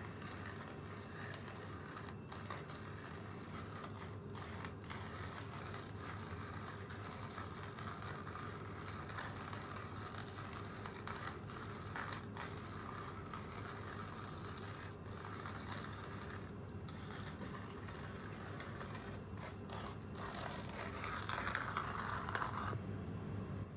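Hand-cranked manual coffee grinder grinding coffee beans: a steady mechanical scraping and rattling.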